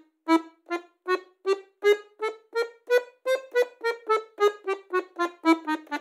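Bayan (Russian button accordion) playing a chromatic scale on the right-hand buttons, one short detached note at a time, stepping up in pitch for about three seconds and then back down, the notes coming faster toward the end. It is a finger-strengthening exercise played with the second, third and fourth fingers.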